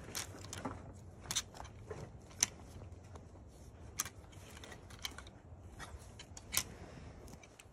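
A series of irregular sharp clicks and light scraping or rustling, over a faint low rumble.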